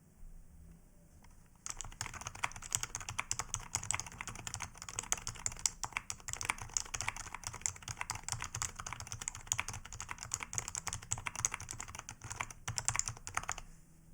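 Fast, continuous typing on a Topre-style electro-capacitive keyboard with rubber domes. A dense run of keystroke clicks starts about two seconds in and stops shortly before the end.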